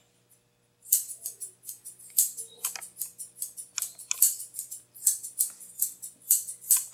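Curved grooming scissors snipping through a dog's coat around its foot: a quick run of crisp snips, about three or four a second, starting about a second in.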